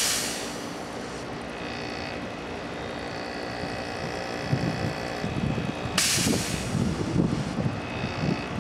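Rotary air-conditioner compressor running and pumping air out of its cut discharge line. A loud rush of hissing compressed air comes as the line is unblocked at the start, and again about six seconds in, over the compressor's steady drone.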